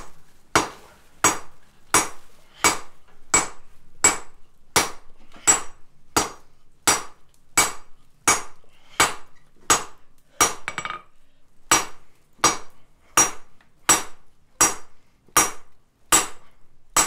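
Hand hammer striking a hot steel rod on an anvil, upsetting the rod's end to thicken it. The blows come evenly, a little more than one a second, each with a bright metallic ring, and there is one short pause about eleven seconds in.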